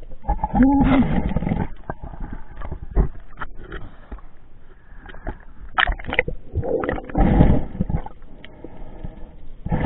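Sea water sloshing and gurgling around a camera as it breaks the surface and goes back under, in uneven loud bursts of splashing with scattered sharp clicks.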